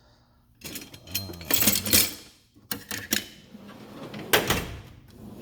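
Metal tools clanking and a steel toolbox drawer sliding and closing, in a few quick bursts of clatter.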